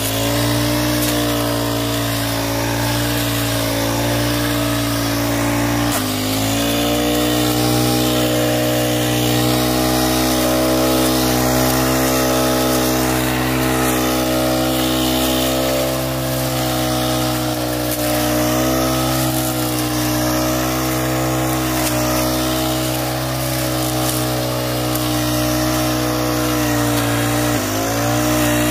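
Petrol brush cutter engine running at high speed while its blade cuts through weeds. The engine note stays steady but dips briefly and picks up again twice, about six seconds in and near the end.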